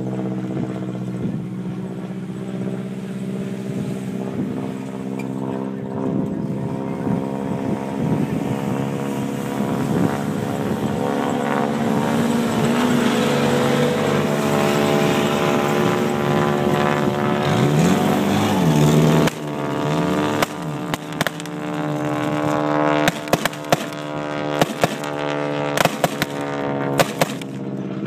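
Vehicle engine running steadily, its pitch wavering briefly a little past halfway. A run of short, sharp pops comes over the last several seconds.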